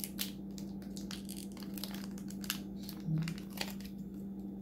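Packaging of a new laptop wireless card crinkling and rustling as it is unwrapped by hand, a run of short, irregular crackles over a steady low hum.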